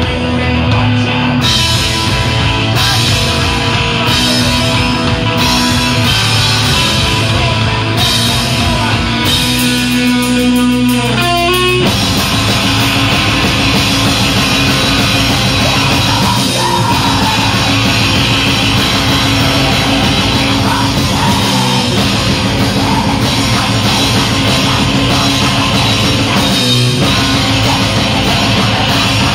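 Live hardcore punk band: distorted electric guitar, bass and drum kit, with a female vocalist shouting into a handheld microphone. The first dozen seconds are a stop-start riff with regular breaks, then a quickening drum roll leads into the full band playing without a break.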